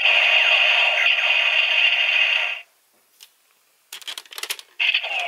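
Pirate Sentai Gokaiger toy gun playing an electronic sound effect through its small speaker, a dense tone with falling sweeps that cuts off suddenly about halfway through. A quick run of clicks follows, then the electronic effect starts again near the end.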